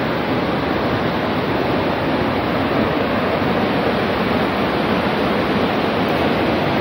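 Whitewater mountain river rushing steadily below.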